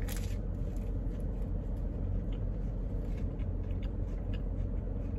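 A bite into a toasted grilled mac and cheese sandwich right at the start, then quiet chewing with small faint crunches. Under it runs the steady low hum of the car cabin.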